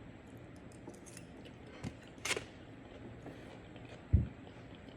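Quiet eating sounds over low room tone: a couple of faint sharp clicks about two seconds in and a short dull thump about four seconds in.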